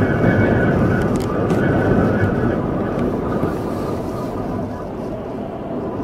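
Strong storm wind buffeting the microphone: a dense, heavy rumble that eases a little in the second half.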